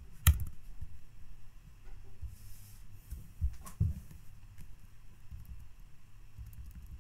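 Computer mouse and keyboard clicks: a sharp click just after the start and two more about three and a half to four seconds in, with faint low thuds between them.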